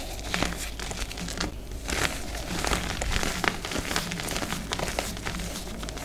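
Hands squeezing and crumbling handfuls of dyed reformed gym chalk. The powdery chalk gives a dense run of soft crunches and crackles.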